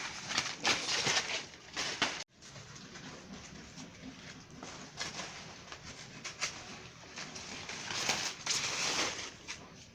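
Dry banana or plantain leaves being cut off the plant, rustling and crackling in bursts, with a sudden dropout about two seconds in and another long stretch of crackling near the end.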